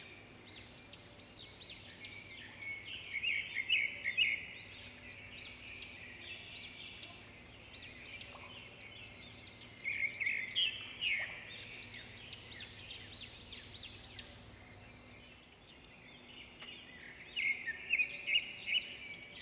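Small birds chirping and twittering, many quick chirps overlapping, with louder bursts about three seconds in, about ten seconds in and near the end.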